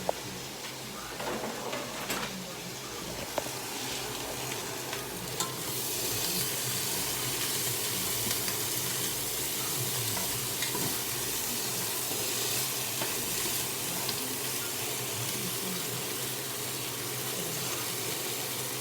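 Chopped purple cabbage sizzling as it fries in a very hot pot, with a few clinks of a utensil in the first few seconds. The sizzle grows louder about five seconds in.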